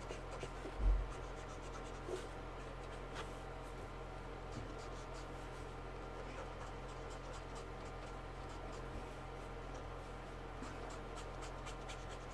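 Brush-tip alcohol marker scratching in short strokes across brown kraft paper, blending orange into red, over a steady electrical hum. A single low thump about a second in.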